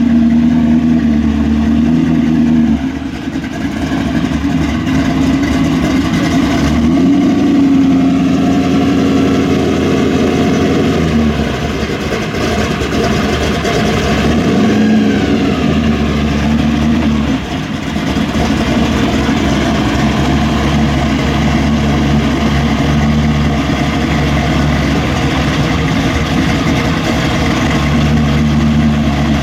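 Muscle car V8 engine running at idle, revved up briefly a couple of times.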